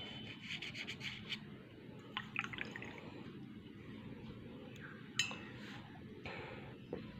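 A paintbrush tapping and clinking against a dish, with a quick run of light clinks near the start, a few more about two seconds in, and one sharper clink about five seconds in.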